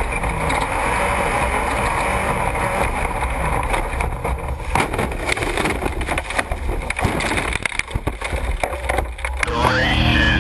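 Off-road race truck driving fast over rough desert ground: a steady rush of engine and wind noise, with a run of rattles and knocks through the second half.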